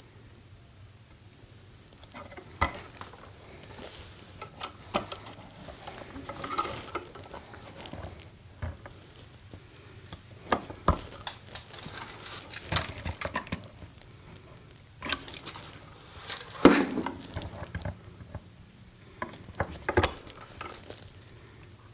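Wire strippers biting into and pulling the insulation off electrical wires, with the wires being handled: irregular sharp clicks and short scraping rasps.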